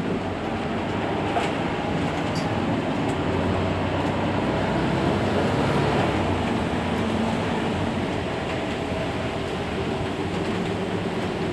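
Mercedes-Benz Citaro C2 Hybrid city bus running at a standstill: its diesel engine gives a steady low hum under an even rushing noise, swelling slightly about halfway through.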